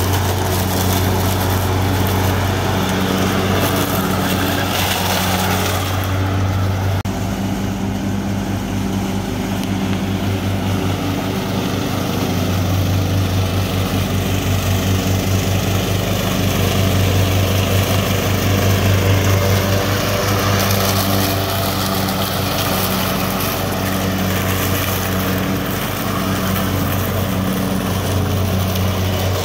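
Cub Cadet LT1018 riding lawn mower running steadily at working speed while mowing and collecting leaves, with a change in its tone about seven seconds in.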